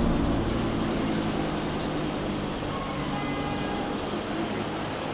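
A car's engine fading away as it drives off, leaving a steady hum of street traffic.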